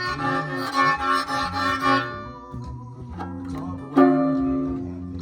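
Violin being played out of tune, with notes changing every second or so and a strong new note about four seconds in, over a recorded song.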